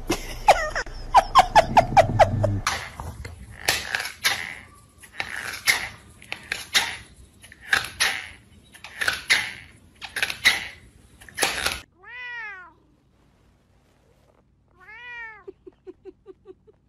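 Cats in a run of short clips: first a quick burst of about seven sharp cries, then rough, noisy sounds roughly once a second, then a kitten giving a few high, arched meows.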